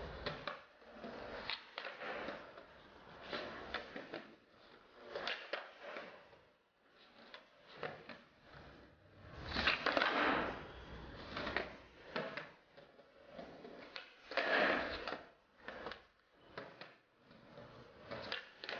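Skateboard on concrete: wheels rolling, with sharp clacks of the tail popping and the board slapping down on landings, repeated trick after trick.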